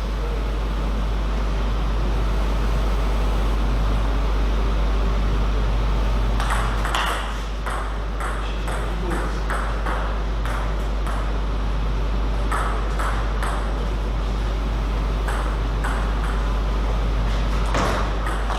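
Table tennis ball clicking off the bats and the table in a rally, a sharp click about twice a second from about a third of the way in, with shorter runs of clicks later. A steady low hum sits underneath throughout.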